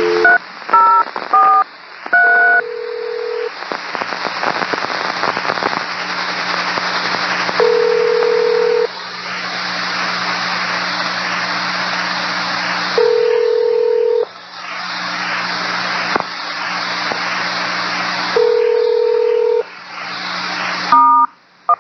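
Railroad two-way radio channel: a quick run of touch-tone (DTMF) beeps, then loud steady radio hiss with a low hum, broken by a one-second beep about every five seconds. More touch-tone beeps come near the end.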